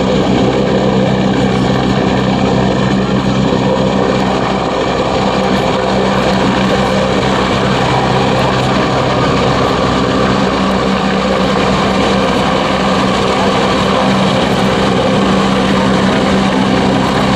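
EH-101 Merlin helicopter in flight, its rotors and turbine engines giving a loud, steady drone with a low hum running through it.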